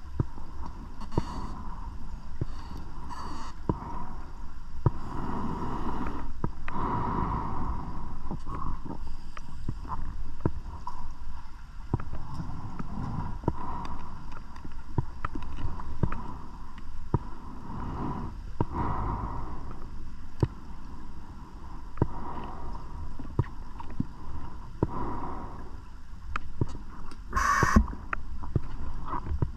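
Scuba diver's breathing heard underwater: swells of exhaled bubbles every few seconds over a steady rumble, with scattered small clicks and one louder, sharper burst of bubbles near the end.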